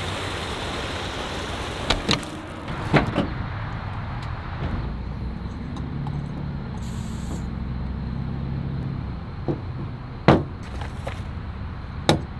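Steady traffic noise with a vehicle engine running by for a few seconds in the middle. Several sharp clicks and knocks come as a small backpacking stove is threaded onto its fuel canister and a pot is set down on a truck tailgate.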